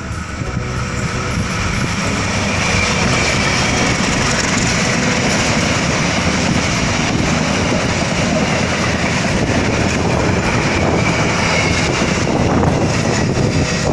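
Diesel-hauled passenger train passing through a station at speed: a steady, loud rush and rattle of wheels on rails that builds over the first couple of seconds and then holds.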